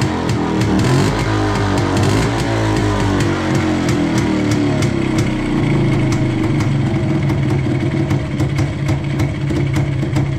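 WSK 125 two-stroke single-cylinder motorcycle engine running. Its speed falls over the first few seconds and then settles into a steady idle.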